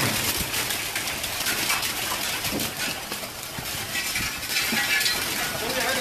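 Dense, irregular clatter of pigeons flapping their wings in a loft, mixed with sharp knocks as a shovel is swung at the perched birds.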